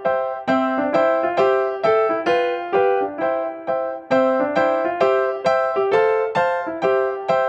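Background piano music, single notes struck at an even pace of about two a second.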